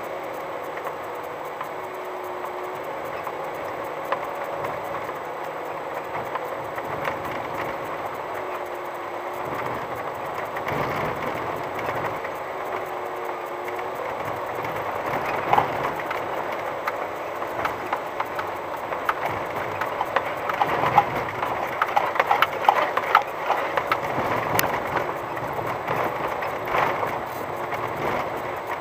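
VW T5 van crawling along a rough gravel track: steady rumble of tyres on loose stones with irregular clicks, knocks and rattles that grow busier about halfway through.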